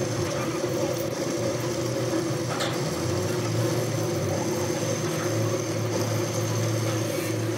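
Steady hum of workshop machinery running, with a brief click about two and a half seconds in.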